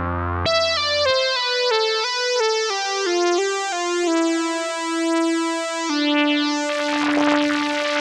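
SynthMaster software synthesizer playing the 'SV Shiny Diamond Drone' preset from a keyboard: bright, buzzy notes step downward about twice a second and settle onto a held note. A whooshing, noisy sweep swells in about six seconds in.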